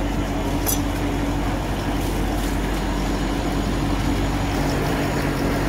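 Fishing boat's engine running at a steady pace, an even low drone heard from on deck. A short high-pitched scrape sounds once, about a second in.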